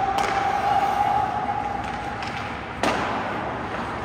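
Ice hockey rink ambience during a game: a steady mid-pitched tone for the first three seconds, then a single sharp impact near the end, over a noisy arena background.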